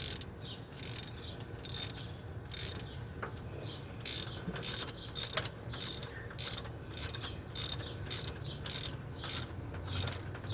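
Metal tool work on an engine's valve gear: irregular short metallic clicks and scrapes, about one or two a second, as a homemade valve spring compressor is worked to compress a valve spring, over a faint low hum.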